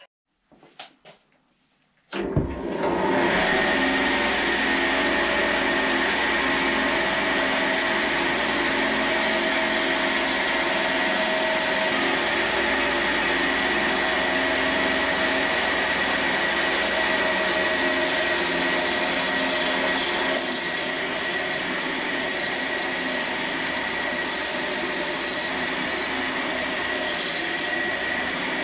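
A few light clicks, then about two seconds in a wood lathe starts and a turning tool cuts into the spinning old, dry chestnut blank: a steady scraping rush of cutting over the lathe's hum, with a constant high whine. It eases a little about twenty seconds in.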